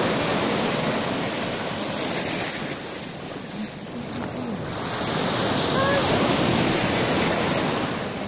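Surf washing up the beach in steady noisy waves, easing off a few seconds in and swelling louder again about halfway through.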